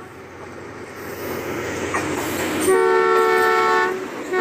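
Pakistan Railways ZCU-20 diesel-electric locomotive 6407 coming past, its running noise growing louder, then sounding its multi-tone horn in one blast of about a second starting a little under three seconds in, with a second blast beginning at the very end.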